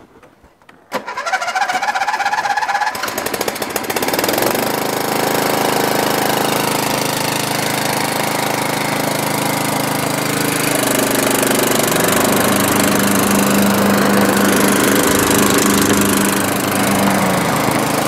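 Riding lawn tractor's 13 hp flathead engine being started: the electric starter cranks for about two seconds, then the engine catches and runs steadily. Its note shifts about eleven seconds in.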